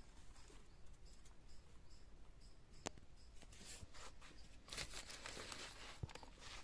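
Faint rustling and scraping as a large rohu fish is handled and laid on a woven bamboo tray, ending with a soft thump. Before that there is a single sharp click and a quiet high chirp repeating about twice a second.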